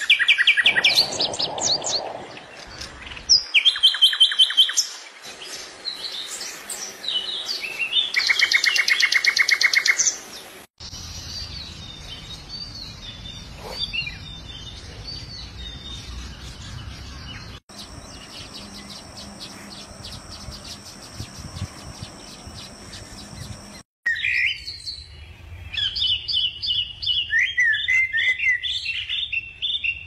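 Small songbirds chirping and singing in several passages that change abruptly: fast rattling trills in the first part, a steady high buzzing through the middle, and quick chirping phrases again near the end.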